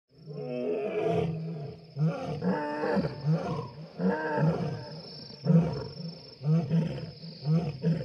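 Lion roaring at night: one long, deep roar followed by a series of shorter, deep grunting roars, about one or two a second, over a steady high, thin tone.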